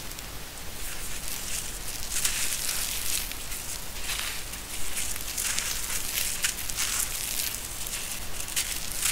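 Hands crushing lumps of dry sand-cement mix: an uneven run of gritty crunches and crackles, with crumbled grit and powder sifting down between the fingers.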